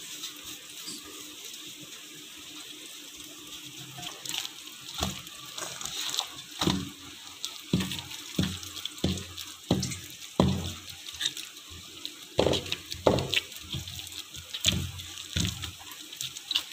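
Hands kneading soft, wet wheat-flour dough in a steel bowl. It is quiet at first, then from about five seconds in comes a run of wet squelches and soft thumps, roughly one or two a second, as the dough is pressed and folded.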